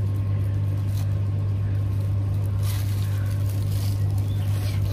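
A steady low hum, with a few faint clicks near the middle and near the end.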